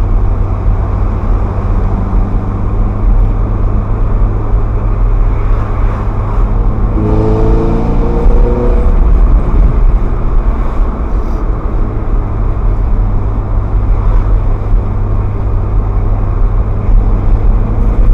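Ferrari F430's V8 engine and road rumble while driving, with a brief rise in the engine note about seven seconds in that lasts under two seconds.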